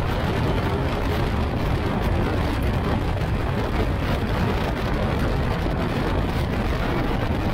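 Open-cockpit Phoenix kit car with a Yamaha R1 motorbike engine driving at speed on track, heard from the cockpit: a steady rush of wind and road noise with no distinct engine note or sudden sounds.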